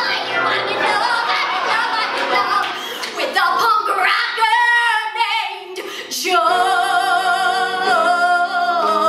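A woman belting a show tune live into a microphone, her voice wavering with vibrato, then holding one long note from about six seconds in.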